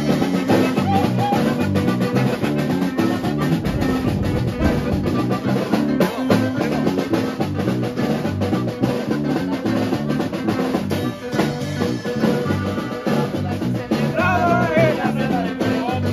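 Live norteño trio playing a song on button accordion, acoustic guitar and electric bass, with a steady beat in the bass. A man sings along about two-thirds of the way through.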